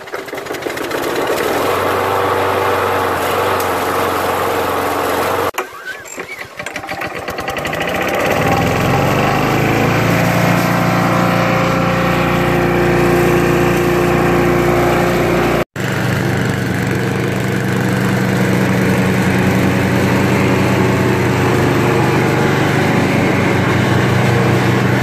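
Small gasoline lawn-mower engines in three clips with abrupt cuts between them: first a walk-behind mower engine running steadily, then a rear-bagging push mower's engine catching and rising in pitch as it comes up to speed, then a Craftsman riding mower's engine running steadily.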